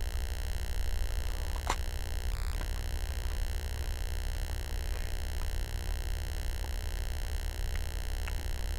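A steady low hum with hiss, and a few faint clicks.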